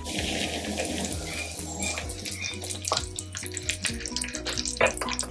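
Stuffed tinda (round gourds) sizzling in hot oil as they are set into the pan, with many small crackling pops; background music plays under it.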